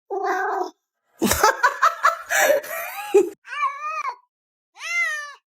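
A person laughing, then a cat meowing twice, each meow rising and then falling in pitch.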